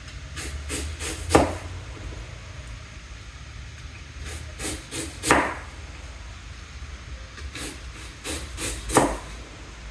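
Knife slicing an apple into thin pieces, the blade clicking down onto the cutting board in three groups of quick strokes, with the sharpest knocks about a second in, midway, and near the end.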